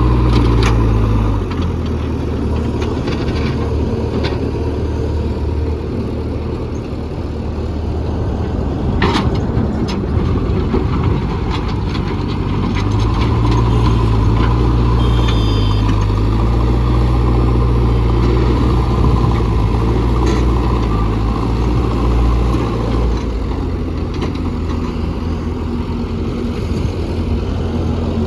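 JCB 3DX backhoe loader's diesel engine running under work. Its speed drops about a second and a half in, picks up again around the middle and eases off near the end, with a sharp knock about nine seconds in.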